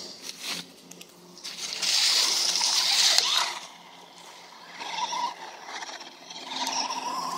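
Small RC truck pushing through dry leaves: a loud rustle lasting about a second and a half, then its motor whining as it drives off across the pavement, the pitch rising slightly near the end.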